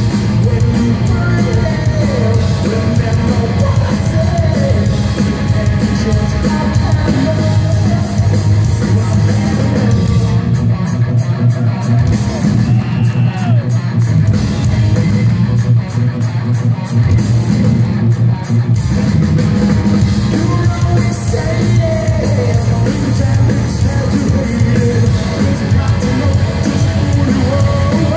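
Hard rock band playing live at full volume: distorted electric guitar, bass and drums, with a man singing and shouting over them, heard from the crowd.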